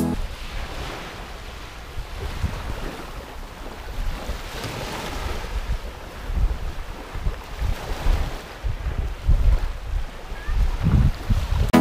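Small waves washing up on a sandy beach, the wash swelling and fading, with wind gusting on the microphone.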